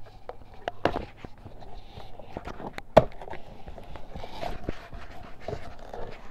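Handling of a large shipping box on a desk: scattered knocks, scrapes and rustles, with one sharp knock about three seconds in.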